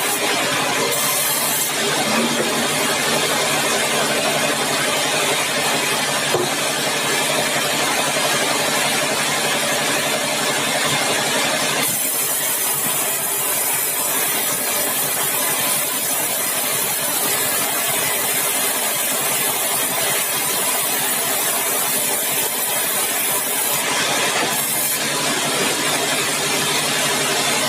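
Sawmill machinery running: a steady engine hum under a loud hiss. The high part of the hiss grows stronger about twelve seconds in and drops back near the end.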